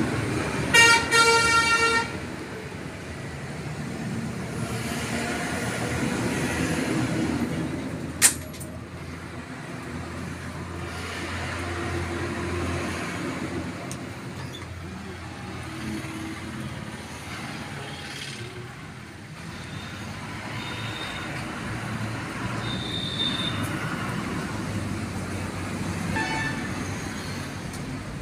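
Steady road traffic noise with a vehicle horn honking loudly for about a second near the start, a sharp click about eight seconds in, and a fainter horn near the end.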